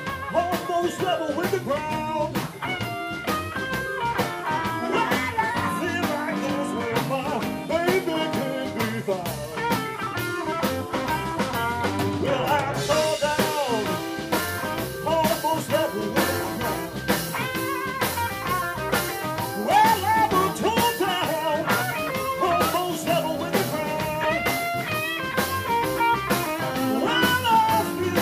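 Live blues band playing: electric guitars with bending lead lines over a drum kit.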